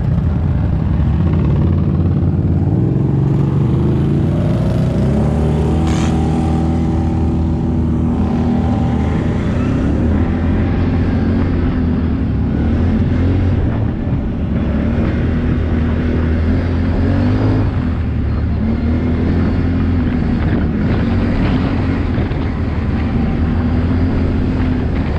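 ATV engine running under way, its note climbing and easing off as the throttle changes. One short sharp click sounds about six seconds in.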